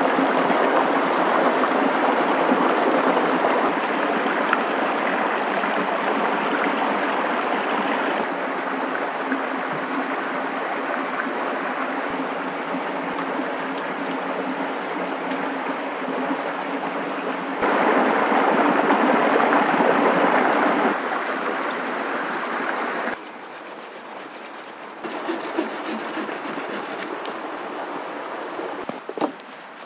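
Steady rush of a running stream. Its level jumps abruptly several times, loudest for a few seconds about two-thirds of the way in and dropping away near the end.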